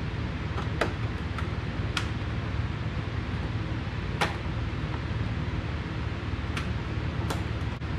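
A handful of sharp clicks and taps, a second or two apart, from a plastic motorcycle fairing and its fasteners being handled as the panel is fitted, over a steady low hum.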